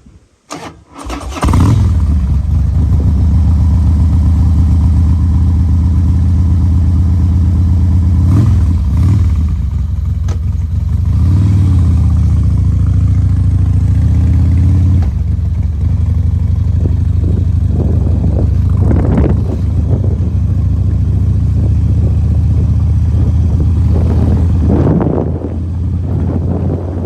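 A vehicle engine cranks briefly and starts about a second and a half in, then idles steadily with a few short blips of the throttle.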